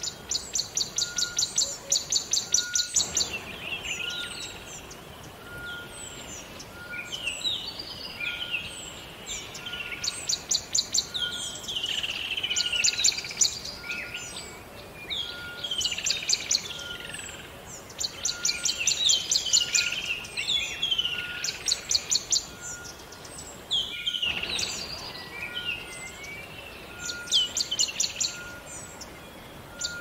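Several songbirds singing, with repeated fast high trills and many short falling whistled phrases, over a faint steady rush of flowing river water.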